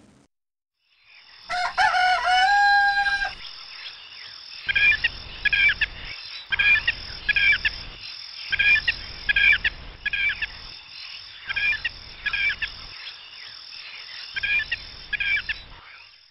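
A rooster crows once, a drawn-out call of about two seconds. Then small birds chirp in quick pairs every second or two over a steady high-pitched background drone.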